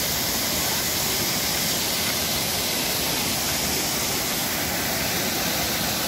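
Waterfall pouring into a rock pool: a steady, unbroken rush of falling and splashing water.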